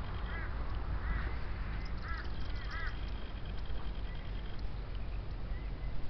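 An animal calls four times in the first three seconds, each a short arched honk, over a steady low rumble of wind on the microphone.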